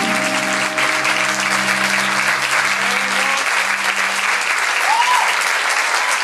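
Audience applauding and cheering as the music's last held chord fades out in the first few seconds. A single rising-and-falling whoop from the crowd comes about five seconds in.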